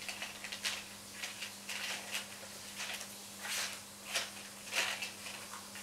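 Small plastic chess pieces being set down on a chessboard: a string of light, irregular clicks and taps.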